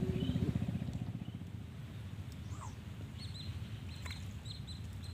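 A low, fast-pulsing engine drone, loudest in the first second and then fading. From about three seconds in, a bird chirps repeatedly with short, high notes.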